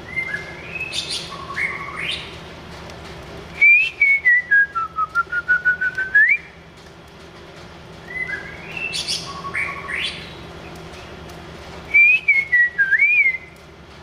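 White-rumped shama singing: clear, loud whistled phrases of rising and falling glides. The song comes twice, each time a softer opening of upward sweeps followed by a louder phrase that dips and ends in a quick run of short notes climbing in pitch.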